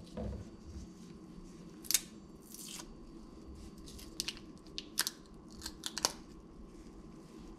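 Garlic bulb being broken apart by hand into cloves and the dry papery skins peeled off: a scattering of sharp snaps and crinkles, the loudest about two seconds in and several more close together a little past the middle.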